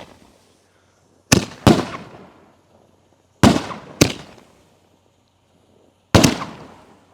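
5-inch canister firework shells going off one after another: about five sharp bangs, roughly in pairs about two and a half seconds apart, each trailing off in a long echo.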